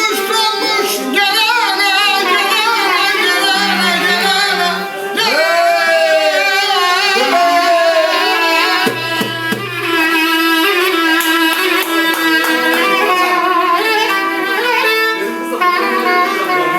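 A singer's voice carrying a wavering, ornamented melody over instrumental accompaniment.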